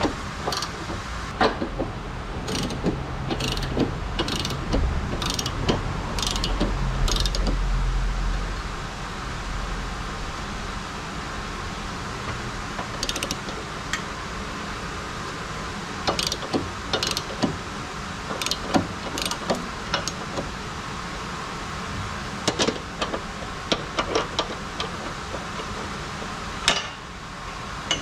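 Socket ratchet clicking in repeated strokes with metal tool clatter, as suspension member bolts are turned. A regular run of clicks, about two a second over a low rumble, fills the first eight seconds; after that the clicks come in scattered clusters.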